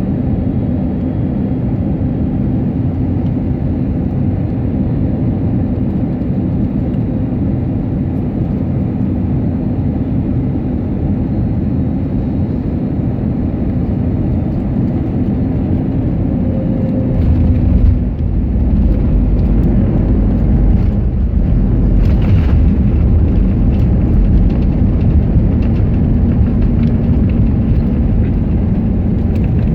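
Cabin noise inside an Airbus A321neo on final approach: a steady rush of airflow and engine hum. About 17 seconds in it gives way suddenly to a louder, deeper rumble, which fits touchdown and the wheels rolling down the runway.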